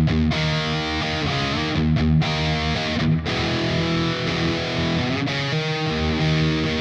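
Peavey HP Special electric guitar tuned down to E-flat, played through a high-gain distorted amp sound (Line 6 POD HD500, Engl Fireball model): ringing power chords and riff notes, with a couple of brief stops between phrases.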